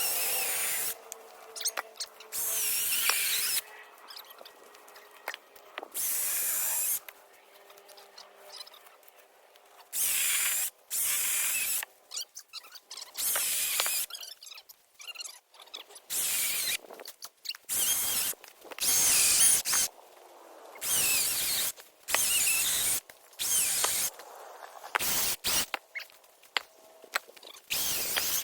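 A power tool run in repeated short bursts of about a second each, starting and stopping sharply, with a high whine.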